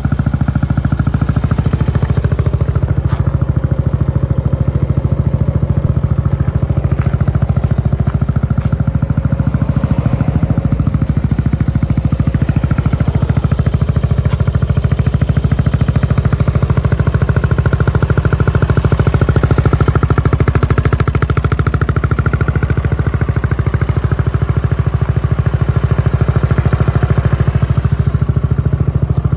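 Yamaha Grand Majesty 250 scooter's water-cooled four-stroke single-cylinder engine idling steadily, in good running order.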